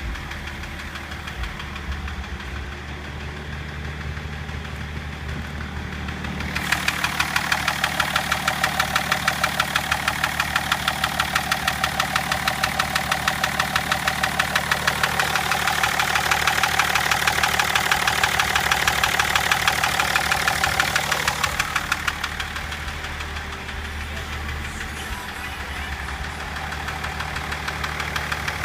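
BMW M57 straight-six turbodiesel running with a regular knock, about four to five strokes a second, which comes through loudest from about seven seconds in until about twenty-two seconds. It is the knocking that appeared after the engine was run at about 240 km/h.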